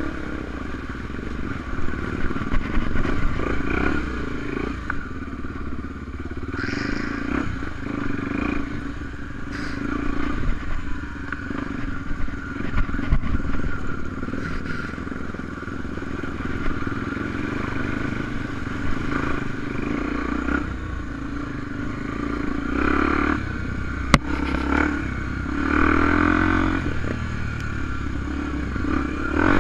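Honda XR250 Tornado single-cylinder four-stroke enduro motorcycle being ridden on dirt, the engine note rising and falling as the throttle is worked. A few sharp knocks come through, the sharpest near the end.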